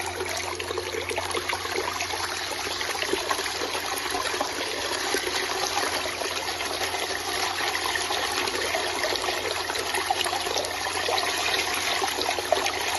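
Steady rush and trickle of water circulated by a SHYSKY DC60G-24120A-1 24 V brushless DC micro water pump running at its normal full-flow speed, back in water after its dry-run protection test, with a low steady hum underneath.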